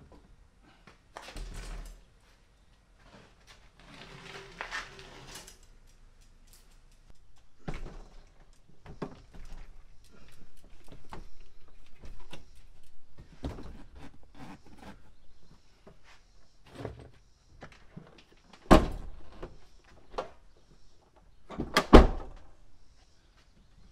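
A bicycle being lifted off a wall hook and loaded into a car's cargo area: scattered rattles, clicks and clunks of the frame, wheels and chain. In the last third come a few loud thunks, the last pair as the Honda Element's fold-down lower tailgate is pushed shut.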